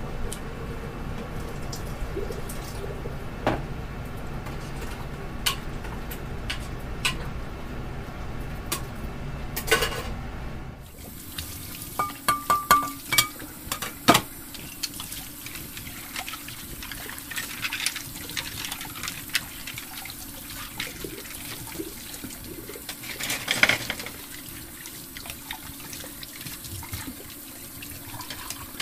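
Hard plastic toy kitchen pieces clicking and knocking as they are handled and fitted together, a few sharp taps at a time, over a steady background hiss that changes about eleven seconds in.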